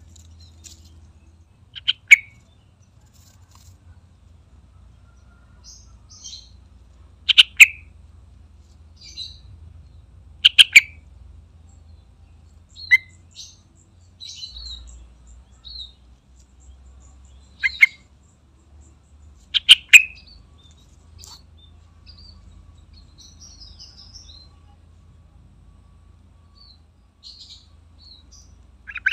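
Yellow-vented bulbul (trucukan) giving short, loud calls every few seconds, six or seven in all, with fainter high chirps between them.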